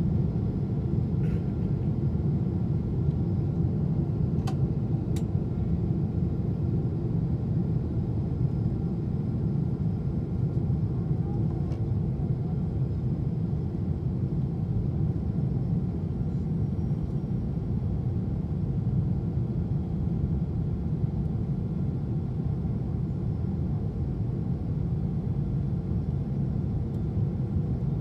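Steady low rumble of a Boeing 777-200 in flight, heard from inside the passenger cabin: engine and airflow noise, with a few faint ticks in the first half.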